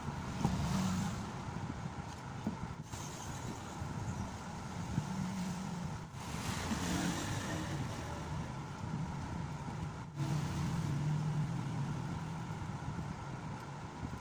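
Steady low rumble of motor traffic or a running engine, broken by three brief dropouts.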